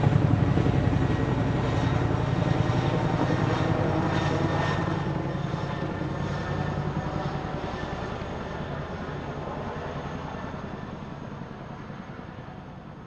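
Helicopter in flight, its rotor beat and engine fading steadily as it moves away.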